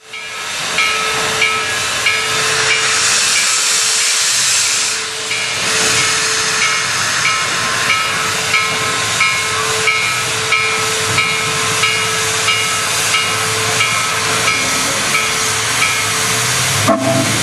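Steam locomotive No. 734 hissing a steady jet of escaping steam, with a short ringing tone repeating about one and a half times a second.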